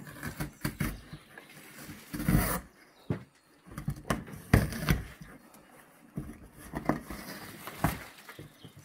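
A Newfoundland dog biting and tearing at a large cardboard box: irregular rips, scrapes and knocks of cardboard, with a longer, louder tear about two seconds in.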